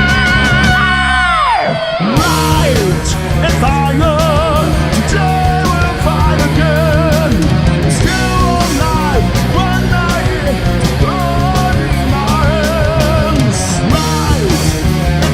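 Rock band playing live: drums, bass and distorted guitars with a melodic lead line on top. A held high note near the start slides down, the low end drops out briefly about two seconds in, and the full band comes back in.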